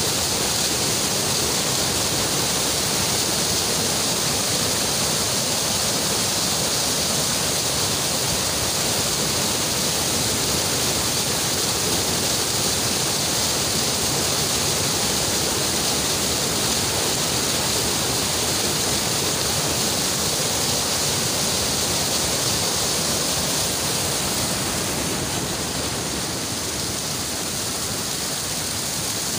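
Small waterfall in a hill stream: a steady rush of white water cascading over rocks. Near the end the sound drops a little quieter, as shallower water running over rock.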